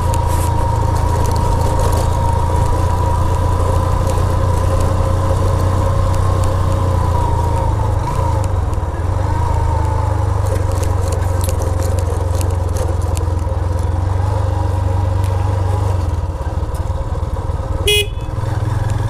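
Motorcycle running steadily along the road, heard from the rider's seat as a constant low rumble of engine and wind with a steady whine. A short horn toot sounds near the end.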